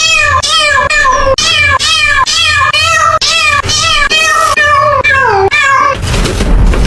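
A cat meowing over and over, about two short meows a second, the last one sliding down in pitch. About six seconds in, the meowing stops and a rough noise with a low rumble takes over.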